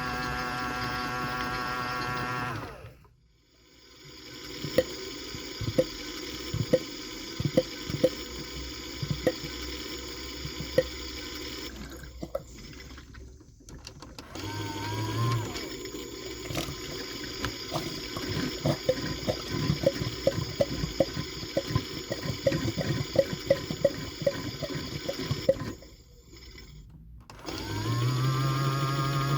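AEG/Electrolux Lavamat 84950 front-loading washing machine passing from main wash into its first inter spin. A steady motor hum stops, then the drum turns with regular clicking knocks from the load over a low churning sound, and near the end the motor hum starts up again and rises in pitch.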